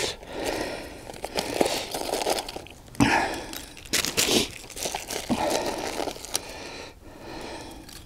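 Crinkling and rustling as hands handle a small plastic packet of tinder and dry twigs while building a campfire lay, with louder crackly bursts about three and four seconds in.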